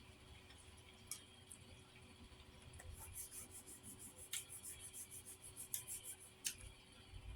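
Faint chewing and mouth clicks over near-silent room tone: scattered soft clicks, with a quick run of crackly ticks about three seconds in.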